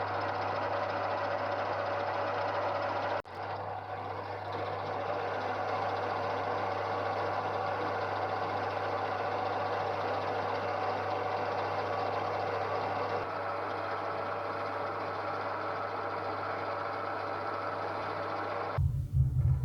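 Electric machine tool running steadily with a low motor hum while a new steel bushing for the steering column's worm-shaft bearing is machined. Near the end the sound turns louder and rougher.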